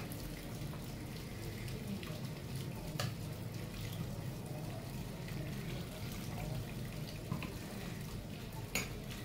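Steel ladle stirring a watery masala gravy simmering in a kadhai, with a steady hiss from the cooking and a couple of sharp clinks of the ladle against the pan, one about three seconds in and one near the end.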